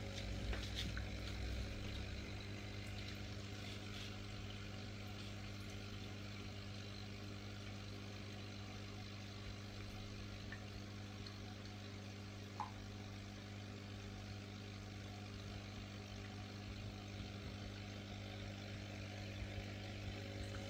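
Steady hum of running aquarium equipment, with the soft fizz of air bubbles rising through the water; a single small click sounds about halfway through.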